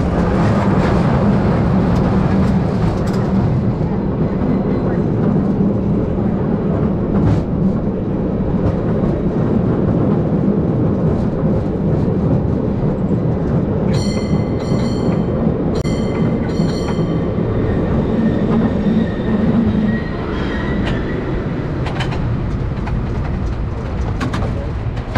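1896 Market Street Railway streetcar No. 578 running along the rails: a steady rumble of wheels and truck under the hum of its two GE 1000 electric traction motors, with the motor hum dropping away about 20 seconds in. About halfway through, a bell rings four short strokes in two pairs.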